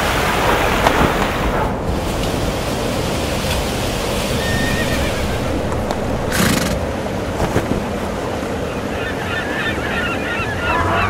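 Steady outdoor rushing noise, with birds calling in short curving calls over the last couple of seconds.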